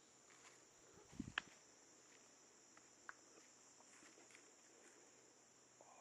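Faint steady high-pitched insect drone, with scattered soft clicks and crunches of footsteps on dry leaf litter and a low thump followed by a sharp click about a second in.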